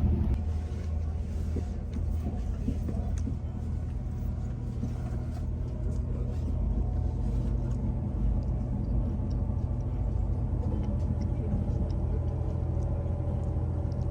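Steady low rumble and hum of a moving train, heard from inside the carriage.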